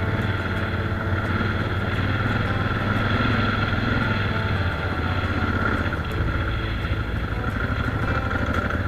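Adventure motorcycle engine running steadily while riding a gravel dirt track, heard from the rider's camera, with the engine note dropping about six seconds in.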